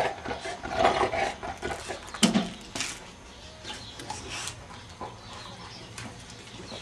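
A dog vocalising a few short times in the first half, the loudest about two seconds in; after that it goes quieter, with only faint clicks.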